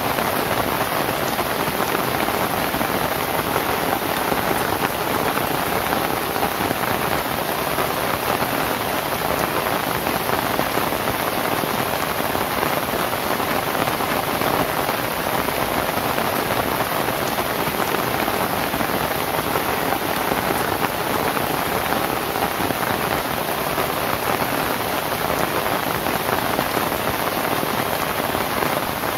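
Steady rain falling on a thatched roof of lontar palm leaves.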